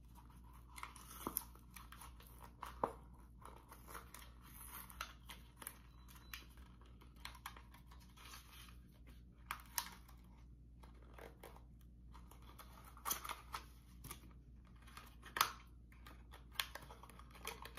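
Paper and cardboard packaging of an Apple Lightning adapter being opened by hand: soft rustling, crinkling and tearing with scattered small clicks, a few louder handling noises near the end.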